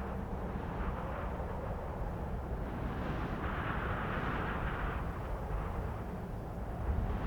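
Cold winter wind blowing steadily with a low rumble, a higher whooshing gust swelling and fading about halfway through.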